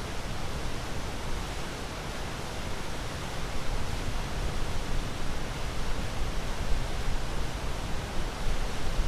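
Ocean waves: a steady, even rush of surf that swells a little louder about a third of the way in.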